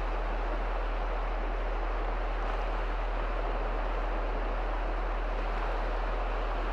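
Small Baltic Sea waves washing through shallow water: a steady, even rush of surf, with a constant deep rumble underneath.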